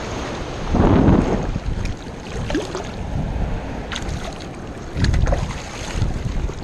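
Wind buffeting the microphone in gusts, swelling about a second in and again about five seconds in, with a few faint clicks between.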